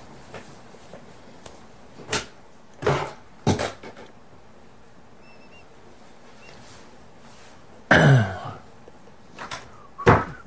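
Short wordless vocal sounds from a man over room hiss: a few brief ones in the first four seconds and a longer one falling in pitch about eight seconds in, then a short knock near the end.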